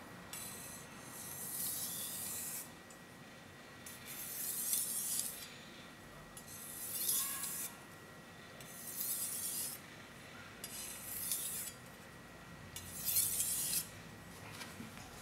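Gyuto kitchen knife blade stroked over a wet Okudo suita Japanese natural whetstone: six high scraping strokes about two seconds apart, each building and then fading.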